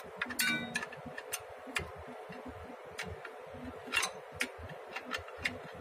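Steel ring spanner clicking and clinking against the alternator's mounting bolt and bracket as the tight bolt is worked loose, in irregular sharp metallic ticks, a few a second, some with a short ring.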